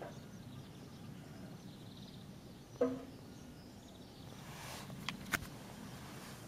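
Quiet garden ambience with faint bird chirps. A single sharp knock comes about three seconds in, then rustling and two sharp clicks near the end as the plastic tub is picked up and moved.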